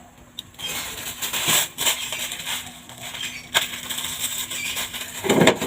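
Whole cloves dropping into a pot, a scatter of small clicks and rattles, with a louder knock or rustle near the end.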